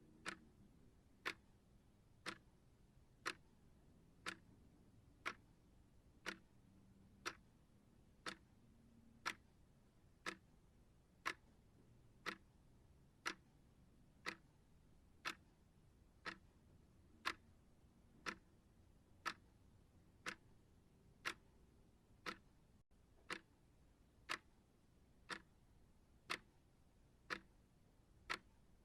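Clock-style ticking, one sharp tick about every second at an even, steady pace.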